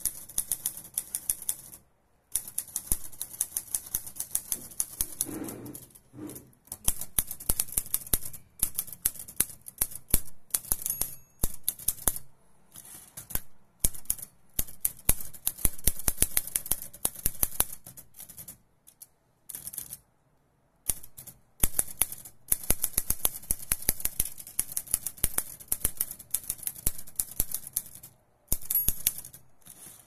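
1956 Olivetti Lettera 22 manual portable typewriter being typed on: rapid, uneven runs of sharp key strikes, broken by a few short pauses, the longest about two-thirds of the way through.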